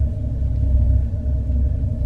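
Horror ambience drone: a deep, steady rumble with faint held tones above it, unbroken throughout.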